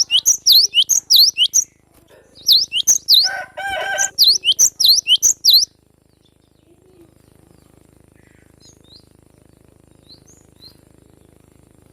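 Cinereous tit (gelatik batu) singing: rapid, loud, sharp sweeping notes in two bursts over the first six seconds, with a lower, harsher call about three seconds in. After that only a few faint chirps.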